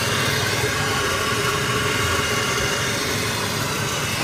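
Hot oil sizzling steadily as skewered meatballs and sausages deep-fry in a wide pan, with a low steady rumble underneath.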